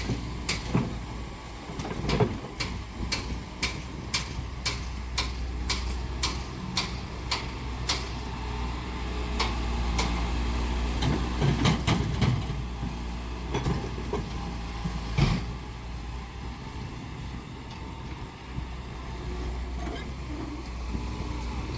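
Heavy construction machinery running with a steady low engine hum. Sharp metallic clanks come about two a second for several seconds early on, then a few scattered louder knocks follow.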